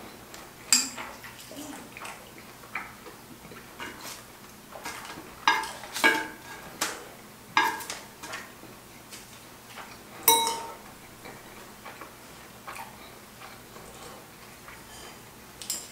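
Metal chopsticks clinking against a small ceramic sauce dish and plate while picking up and dipping food. There are several sharp, briefly ringing clinks, the loudest about ten seconds in, with fainter taps between them.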